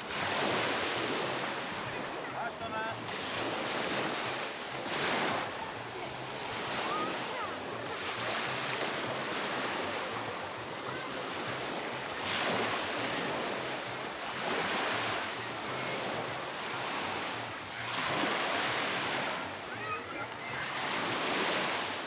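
Sea waves breaking and washing up on a beach, the surf swelling and falling back every few seconds, with faint voices of people nearby in the background.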